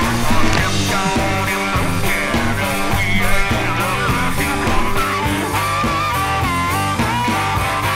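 Rock music with electric guitar and a steady beat, laid over the footage.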